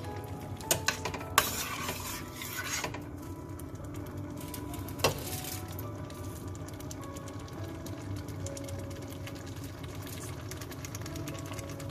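Thick tuna and tomato-passata sauce bubbling and popping in a steel pot as it nears done. A spoon knocks against the pot a few times in the first couple of seconds, and once more about five seconds in.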